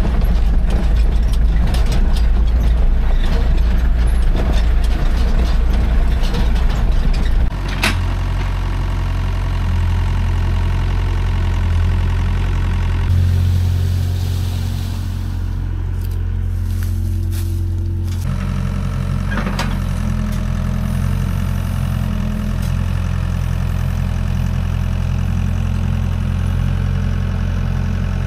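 Dump truck engine running with a heavy, rattling rumble, then dropping to a steady idle about seven seconds in.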